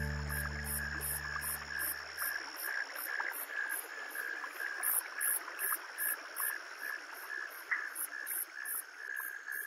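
Insects chirping, with high chirps pulsing about three times a second over a steady trill. The tail of guitar music fades out in the first couple of seconds.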